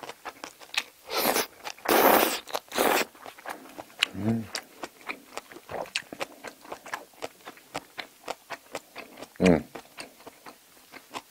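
Close-miked eating of spicy braised seafood and bean sprouts: three loud slurps in the first few seconds, then wet chewing with many small clicks and smacks. Two short hums come at about 4 seconds and near the end.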